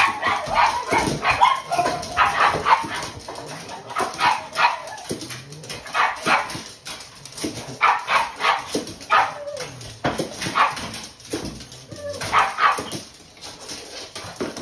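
Several pugs barking and yapping excitedly in short clusters about every two seconds, the clamour of dogs begging to be fed.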